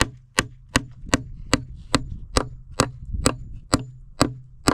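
Steady chopping: a blade striking down on wood about two and a half times a second, in an even rhythm of sharp strokes.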